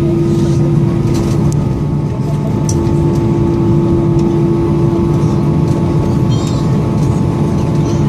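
Airbus A320 cabin noise on the ground just after landing: a steady engine hum with a constant low tone and a few faint clicks and rattles.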